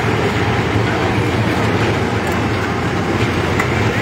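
Tracked excavator's diesel engine running steadily close by.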